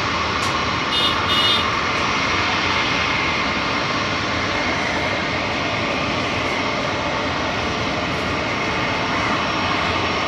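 Jet airliner engines running steadily, a wide rush of noise with a steady whine. Two short high chirps come about a second in.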